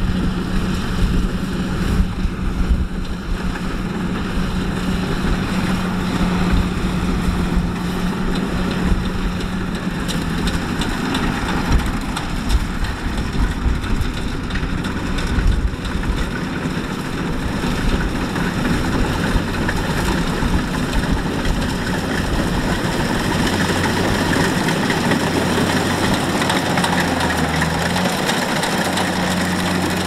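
Rice combine harvester engine running steadily under wind rumble on the microphone. About three-quarters of the way through its hum drops to a lower pitch.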